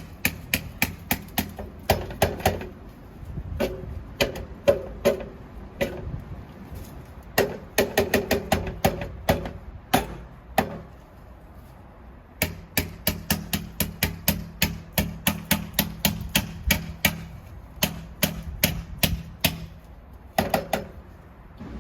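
Hammer blows chipping through fresh plaster to open up a buried waste-pipe hole in a wall. The sharp knocks come in quick runs of about three a second, with short pauses between runs.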